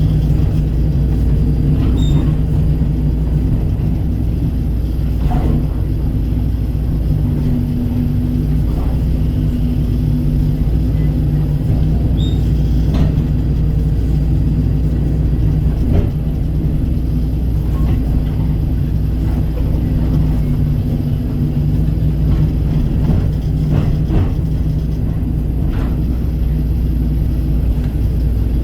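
Kobelco SK135 excavator's diesel engine running steadily while it works, with a few faint clicks and knocks scattered through.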